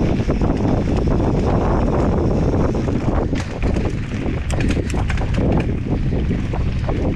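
Wind buffeting the microphone and tyres running over a dirt trail during a fast mountain-bike ride, with a run of sharp clicks and rattles from about three to six seconds in.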